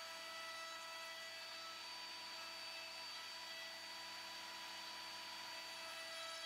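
Table-mounted router running at full speed with a steady whine of several fixed tones as a board is pushed past its cove bit.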